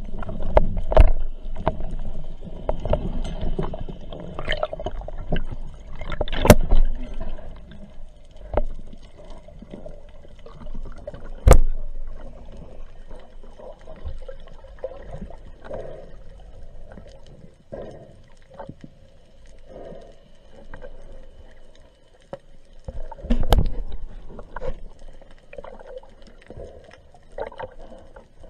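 Water heard underwater: muffled sloshing and bubbling, with scattered sharp clicks and knocks, including single loud ones about six and eleven seconds in and a cluster just before the last five seconds.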